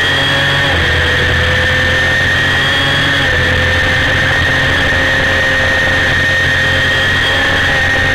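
Honda CBR250RR's 250 cc inline-four engine running at high, nearly steady revs, with small dips in pitch a few times, under a haze of wind and road noise.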